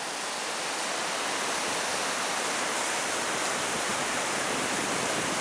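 Vernal Fall on the Merced River, heard as a steady, dense rushing hiss of falling water with no breaks; it cuts off suddenly near the end.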